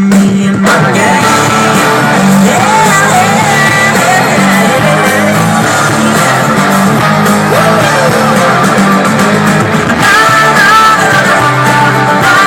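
Rock song playing, with singing over guitar and a steady beat.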